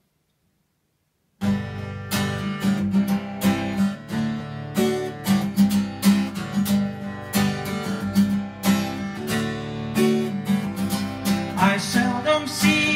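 Acoustic guitar strummed in an even rhythm as a song intro, starting about a second and a half in. A man's singing voice comes in near the end.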